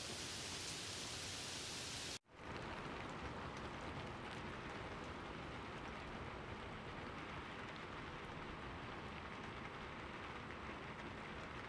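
Steady rain falling. About two seconds in it cuts out for a moment and comes back duller, with scattered individual drops ticking.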